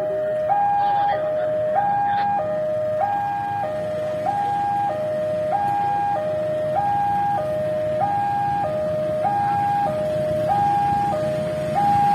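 Electronic two-tone warning alarm alternating between a high and a low pitch about every 0.6 seconds. Underneath, the low rumble of an approaching diesel locomotive grows louder toward the end.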